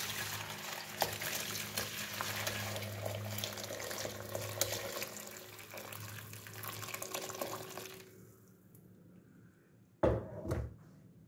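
Hot calf-tail broth poured in a steady stream from a pot into a plastic colander over a bowl, splashing as the colander fills; the broth is being strained to lift out the meat. The pour thins out after about seven seconds, and a short knock comes near the end.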